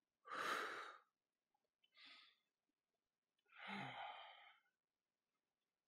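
A man breathing out in audible sighs while holding a stretch: two breathy exhales, one about half a second in and one about four seconds in, with a fainter breath around two seconds.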